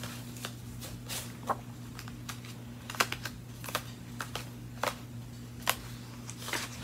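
Paper pages of a disc-bound planner being turned and handled: scattered light taps and rustles over a steady low hum.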